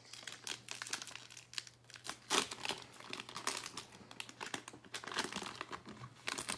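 Foil wrapper of a Topps Series 1 baseball card pack crinkling and tearing as it is pulled open by hand, in a string of irregular crackles, loudest about two seconds in and again near five seconds.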